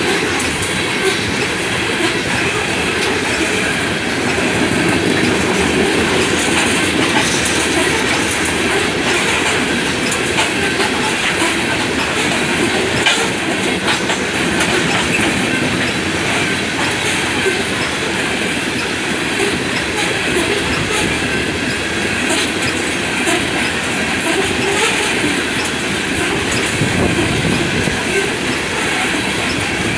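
Cars of a loaded coal train rolling past at speed: a steady rumble with the rapid clickety-clack of steel wheels over the rail joints and the grade crossing.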